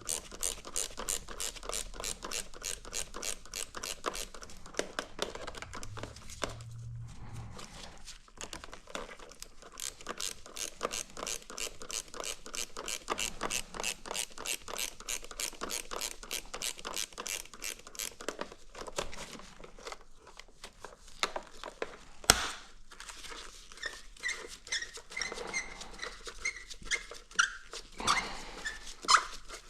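Hand ratchet clicking steadily, about four to five clicks a second, in runs with short pauses as fasteners are worked loose. A single sharp knock comes a little past the two-thirds mark, then scattered lighter clicks and knocks of parts being handled.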